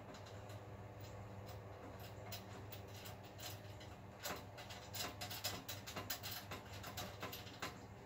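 Network cables and a patch panel being handled against a metal equipment rack: irregular light clicks and rattles, busier and louder in the second half, over a steady low hum.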